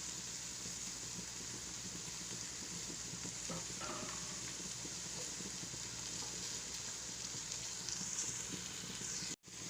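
Chopped vegetables frying in oil in a pan over low heat: a steady soft sizzle, broken by a split-second dropout near the end.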